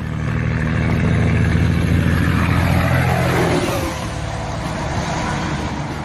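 Truck engine sound running loudly for about three seconds, then easing off with a falling pitch; it is an engine sound laid over a die-cast toy flatbed truck, which has no motor of its own.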